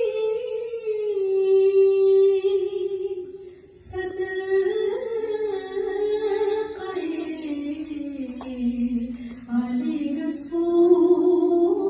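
High solo voice singing a naat unaccompanied, drawing out long melismatic notes that slowly step down in pitch, with a short breath about four seconds in.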